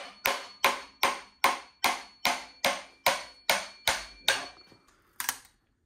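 Small hammer tapping metal on an engine on a stand: a steady run of about a dozen sharp, slightly ringing strikes, roughly two and a half a second. They stop about five seconds in, with one last tap after a short pause.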